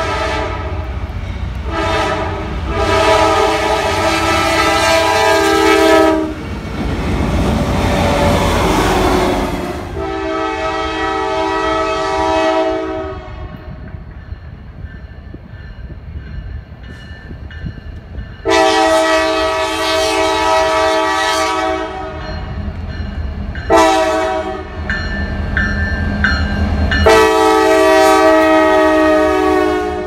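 Diesel locomotive multi-chime air horns sounding a series of long blasts with a couple of short ones. Between the blasts comes the rumble and wheel clatter of passing trains. The last long blast, near the end, comes from a Norfolk Southern freight locomotive passing close.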